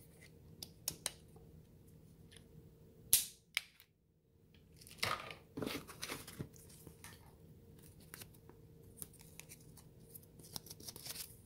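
Unboxing handling noises: light clicks as a plastic power adapter is handled, a sharp click about three seconds in, rustling and scraping as a hand reaches into the box's foam packing insert about five seconds in, then quick crinkly clicks of a small paper slip being handled near the end.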